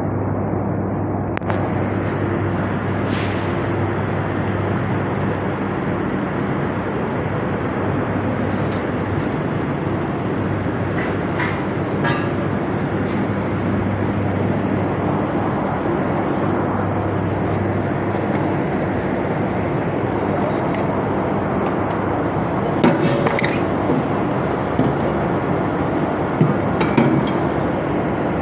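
Large nine-inch angle grinder running steadily with a constant motor hum, a few sharp clinks near the end.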